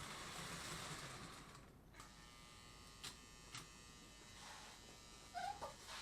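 Postwar Lionel O gauge steam locomotive running on the track, a faint motor buzz and wheel rumble that fades away about two seconds in. Then two light clicks and a short squeak near the end.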